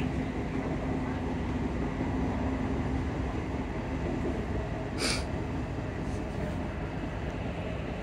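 Inside a Class 334 electric multiple unit under way: a steady drone of traction motor cooling fans and wheels on the rails. A low hum fades out about halfway through, and there is a short hiss about five seconds in.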